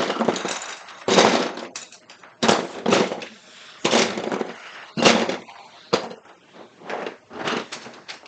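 Handfuls of 3D-printed plastic parts clattering as they are gathered off a wooden desk and dropped into a cardboard box, a sharp rattle about once a second.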